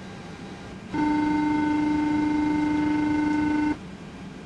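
Cockpit call buzzer sounding one steady, even tone for nearly three seconds, starting about a second in and cutting off sharply: the signal of an interphone call from the cabin crew. A steady aircraft cabin hum runs underneath.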